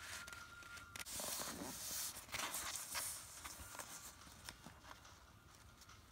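Origami paper rustling and scraping under the fingers as it is folded and pressed into creases, louder between about one and three seconds in.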